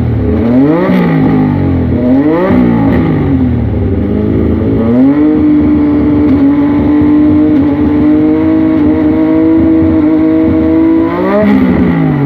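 Racing motorcycle engine revved in quick throttle blips, each pitch sweeping up and straight back down, then brought up and held at a steady high rev for about six seconds before dropping back to blips near the end.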